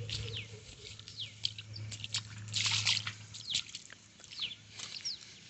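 Small birds chirping, many short calls that fall quickly in pitch, over a steady low hum. A brief, louder rustling noise comes about two and a half seconds in.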